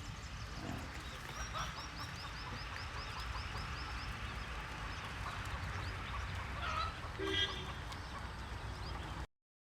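Outdoor countryside ambience with birds calling over a low steady background rumble. A high chirp repeats about three or four times a second for several seconds. Near the end comes a short, louder, lower call, and then the sound cuts off abruptly.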